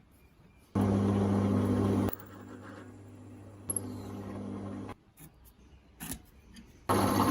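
An electric power tool's motor running in short stretches: a loud steady hum about a second in, a quieter hum for a few seconds, a pause, then the loud hum again near the end, each starting and stopping abruptly.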